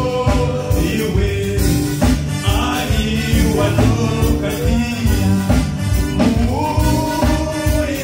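Gospel worship song: a singing voice over a band with a steady drum beat.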